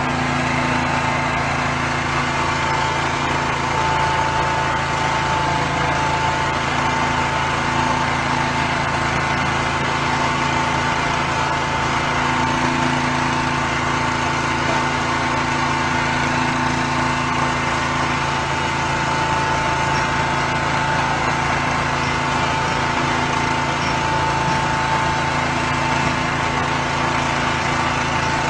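A small engine or motor running steadily at an even pitch, with no change in speed.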